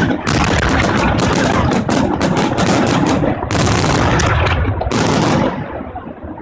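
Fireworks battery in a rapid barrage: dense, overlapping bangs from shells bursting overhead, so close together they merge into a continuous rattle of explosions. About five and a half seconds in the barrage thins out and dies down to a quieter crackling tail.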